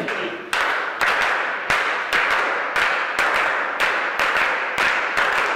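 A group of footballers clapping in unison, about two claps a second, quickening slightly, in an echoing locker room.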